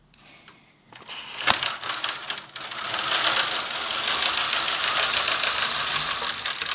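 Brother KH260 knitting machine's carriage pushed along the needle bed, knitting a punchcard jacquard row in two colours: a sharp click about a second and a half in, then a steady, dense clatter of needles and carriage cams for about four seconds that stops near the end.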